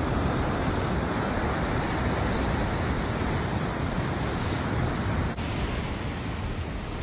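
Steady rush of ocean surf breaking on the shore, mixed with wind on the microphone, with a brief dip about five seconds in.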